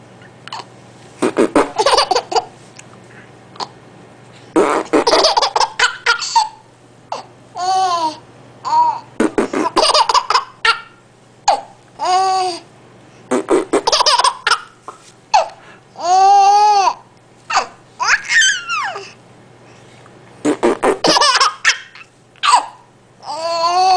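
A baby laughing hard in repeated bursts, set off by short high-pitched funny sounds that rise and fall in pitch between the fits of laughter.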